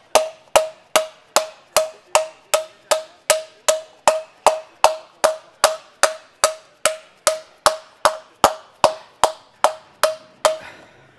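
Hand hammer panel-beating a sheet of aluminium on a metal stake: steady, even blows about two and a half a second, each with a short metallic ring, stopping about ten and a half seconds in.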